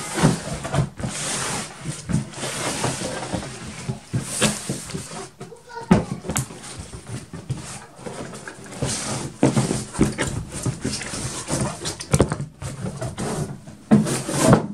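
Large cardboard model-kit box being handled and opened: cardboard scraping and rustling as the lid slides off, with several sharp knocks and thumps of the box against the wooden table.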